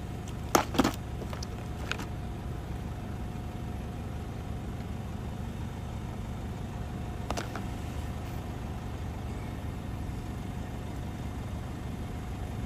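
A vehicle engine idling steadily, a low drone with a faint steady whine above it. Two loud sharp clicks about a second in, fainter ones near two seconds and seven seconds, from handling the plastic first-aid kit.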